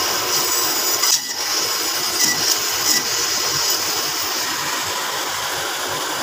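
Meat band saw running steadily with a high-pitched hiss, its blade cutting beef silverside into cubes, the sound shifting briefly a few times as pieces are pushed through.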